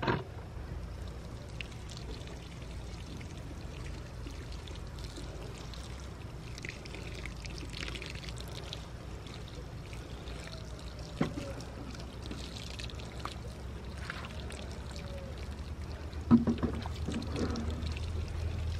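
Water sprinkling from a plastic watering can's rose onto freshly planted basil and pepper plants and the soil of a raised bed, over a low steady hum. A few knocks break in, the loudest about sixteen seconds in.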